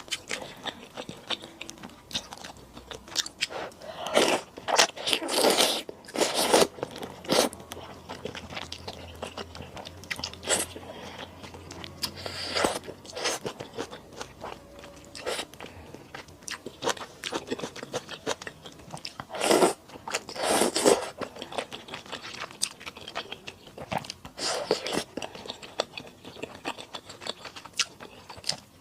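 A person eating malatang with thick rice noodles close to the microphone: steady chewing with many short clicks, and a few louder, longer bursts about four to seven seconds in and again around twenty seconds in.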